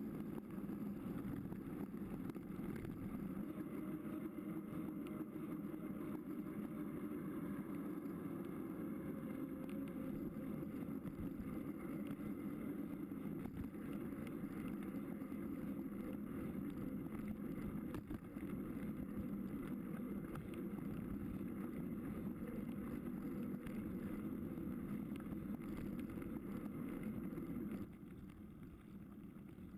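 Mountain bike rolling over a gravel road, heard from a camera mounted on the bike: a steady low rumble of tyres on gravel with small rattles and wind on the microphone. It drops quieter near the end.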